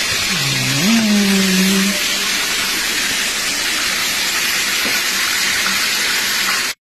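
A steady, loud hiss that cuts off suddenly near the end. A short hum rises and then holds about a second in.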